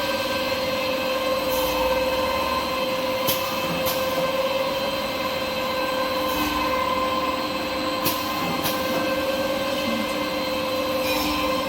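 Kitchen-towel paper log saw cutting machine running: a steady mechanical whine with a few sharp clacks at irregular intervals.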